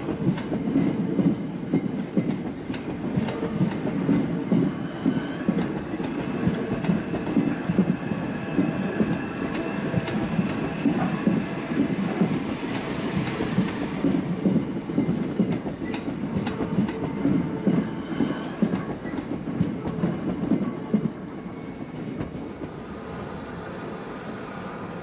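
Electric multiple-unit passenger train running slowly out over station pointwork: a steady rumble of wheels on rail with irregular clicks and clunks over the joints and crossings, dropping away about four seconds before the end. About halfway through, a hiss of steam rises briefly from the standing Southern Railway Merchant Navy class steam locomotive.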